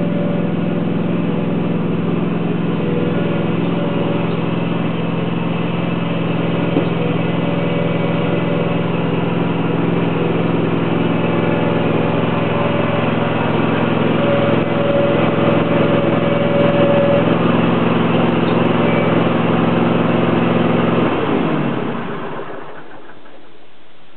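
A small engine running steadily, then shut off about 21 seconds in, its pitch dropping as it winds down to a stop.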